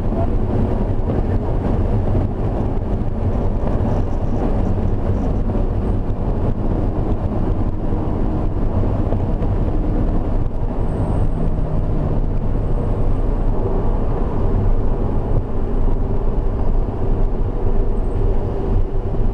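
Highly modified BMW E36 3-series driven hard, heard from inside the cabin: a steady engine drone mixed with road and wind noise. The engine note changes about halfway through.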